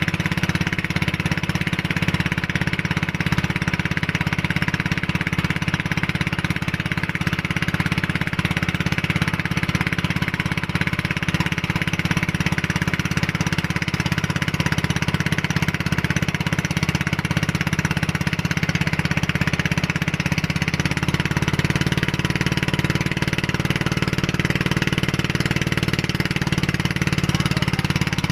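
Tow boat's engine running steadily under load while pulling a banana boat across the water. Its tone changes slightly about twenty seconds in.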